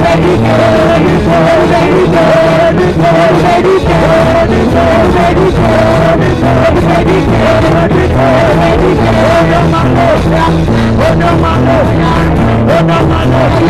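Live gospel band playing loudly, with a repeating bass line, a steady beat and a high melody phrase that recurs over and over.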